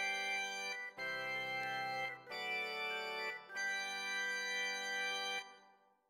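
Organ patch from a Roland SR-JV80-08 (Keyboards of the 60s & 70s) expansion card on a Roland XV-5080 sound module, playing held chords that change about 1 s, 2 s and 3.5 s in; the last chord is released near the end and fades out.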